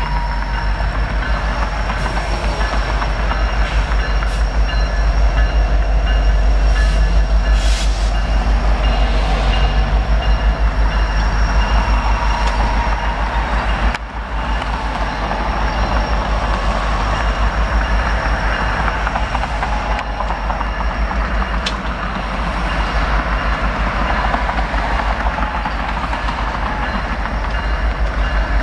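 A passenger train of office cars rolling slowly past behind a diesel locomotive: a steady rumble of wheels on rail and engine noise, with faint high-pitched tones over it.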